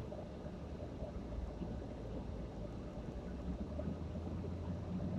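Car being driven along a street, heard from inside the cabin: a steady low hum of engine and road noise.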